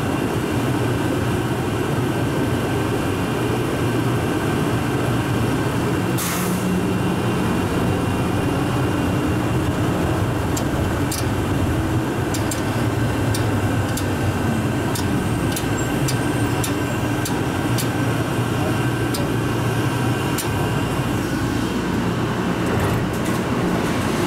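Interior running noise of Atlanta's Plane Train, a rubber-tyred automated people mover, travelling through a tunnel: a steady rumble and low hum. A brief burst of noise comes about six seconds in, and a run of light clicks follows over the second half.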